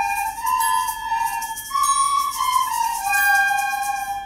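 A school recorder ensemble playing a melody in held notes, moving from note to note every half second to a second.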